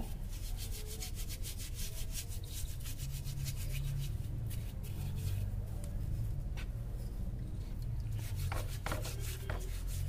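Rapid, repeated scrubbing strokes as a motorcycle's front drum-brake parts are cleaned with turpentine oil, over a steady low hum.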